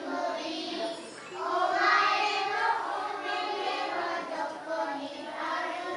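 A group of young children singing together, with a short break about a second in.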